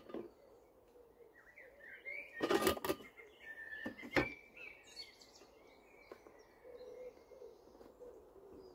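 Small birds chirping outdoors, with a brief clatter about two and a half seconds in and a single sharp knock just after four seconds, as parts are handled.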